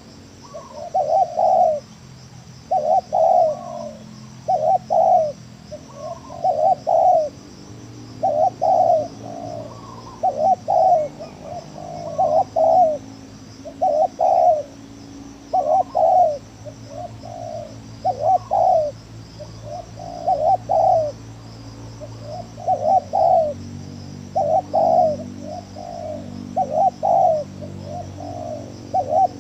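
Spotted doves (tekukur) cooing over and over in short phrases of two or three notes, a stuttering 'gagap' coo. Faint high chirping runs underneath.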